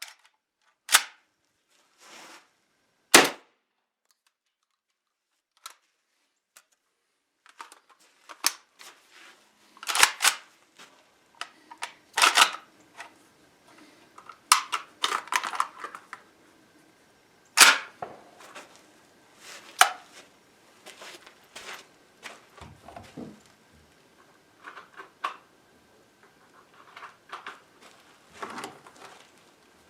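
JTS AK-style 12-gauge semi-automatic shotgun firing single shots a few seconds apart, with smaller clicks and clatter of gun handling between the shots.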